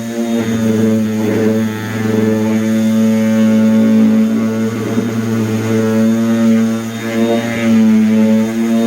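DeWalt palm orbital sander running on its lowest speed setting with a 180-grit 3M Cubitron II disc, sanding cedar: a steady droning hum that swells and dips slightly as the pad is worked over the wood.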